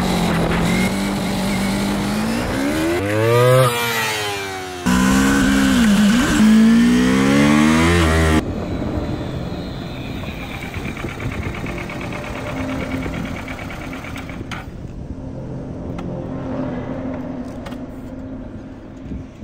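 Motorcycle engine revving, its pitch rising and falling several times, with abrupt cuts about five and eight seconds in. After that the engine runs quieter and steadier.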